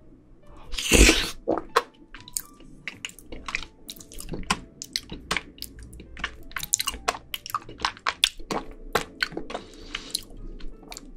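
Close-miked wet mouth sounds of a person eating soft, jelly-like balloon pudding off a spoon. There is one loud wet burst about a second in as the spoonful goes in, then a run of quick sticky clicks and squishes as the pudding is chewed.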